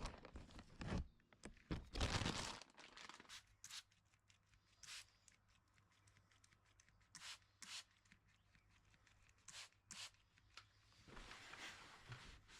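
Faint, scattered short rubbing and swishing strokes of a rag wiping down a laminate desk surface, about a dozen strokes separated by pauses.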